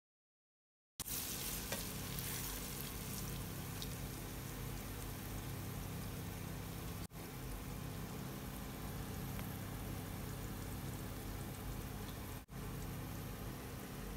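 Egg omelet with cha-om (Acacia pennata) shoots frying in oil in a pan, a steady sizzle. It starts abruptly about a second in and cuts out for an instant twice.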